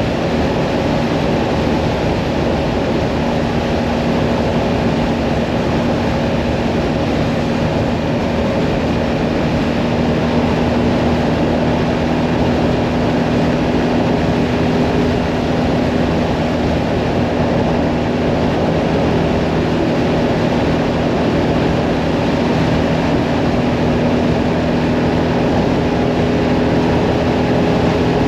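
Mirage 650 motorcycle's V-twin engine running steadily at cruising speed, heard under heavy wind rush. The engine note holds steady, with a slight change in pitch near the end.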